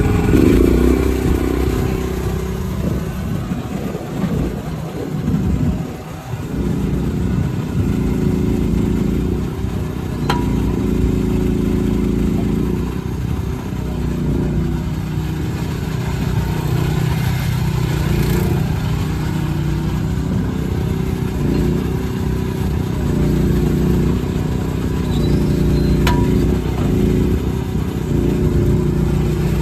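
Briggs & Stratton engine of a small crawler excavator running, its pitch and load rising and falling as the machine works, with a short dip about five seconds in. Two light clicks are heard, one near the middle and one near the end.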